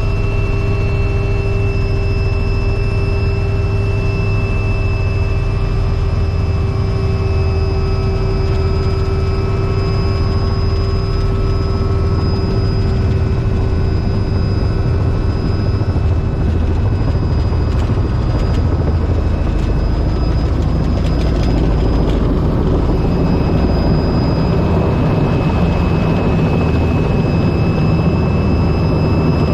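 Robinson R44 helicopter in flight: a loud, steady engine and rotor drone with a high whine over it. About two-thirds of the way through, the whine fades and a rougher noise takes over.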